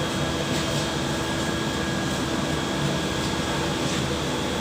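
Miura steam boiler running: a steady mechanical drone with a few constant tones held through.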